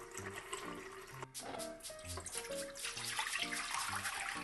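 Tap water running into a plastic measuring jug, with background music throughout.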